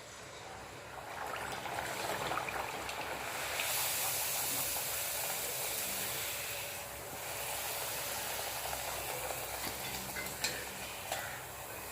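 Wheat poori dough frying in hot oil: a sizzling hiss that swells about a second in and grows louder about three and a half seconds in. Two sharp clicks near the end.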